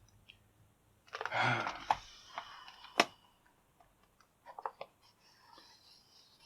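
Hands handling a bike cable lock and its packaging: a brief rustle about a second in, a single sharp click about three seconds in, then a few light clicks.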